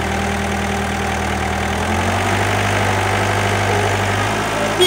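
Hyundai 55W wheeled excavator's diesel engine running, heard close up with its engine cover open; the engine note steps up in pitch about two seconds in. A short knock comes near the end.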